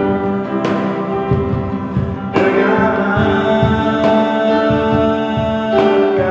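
A male voice singing to strummed acoustic guitar, with a Yamaha keyboard holding sustained chords and a cajon beneath. The chords change about three times.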